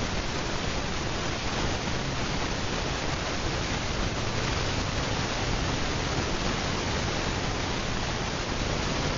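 42-inch Hunter Low Profile ceiling fan running steadily, a constant whoosh of air from the spinning blades.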